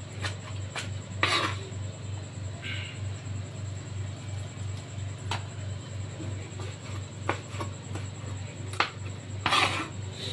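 Kitchen knife clinking and scraping against a tray and cutting board as pieces of cooked pork large intestine are shifted: scattered light clicks, with two short scrapes about a second in and near the end. A steady low hum lies underneath.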